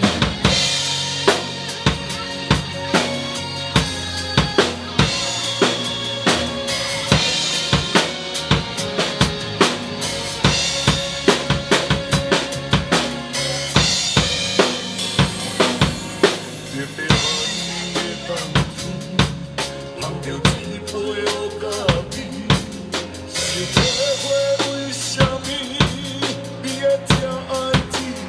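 Acoustic drum kit played live, with fast bass drum, snare and cymbal hits, along to the recorded backing track of a Taiwanese Hokkien pop song during its instrumental section.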